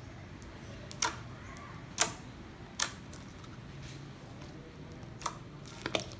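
Slime being stretched and squeezed by hand, giving about six sharp popping clicks at irregular intervals as trapped air bursts, the loudest about two seconds in.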